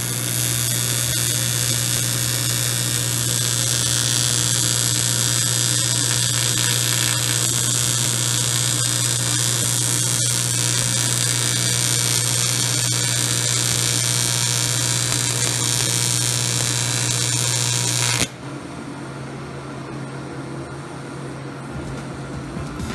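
TIG welding arc buzzing steadily with a hissing crackle while a bead is laid on metal intercooler piping. It cuts off suddenly about 18 seconds in, leaving a quieter steady hum from the welder.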